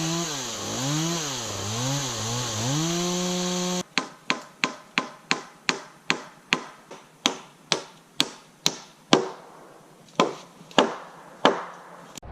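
Chainsaw engine revving up and down, then held at high speed, cutting off abruptly about four seconds in. It is followed by a run of about twenty sharp hammer blows, two to three a second, coming more slowly near the end.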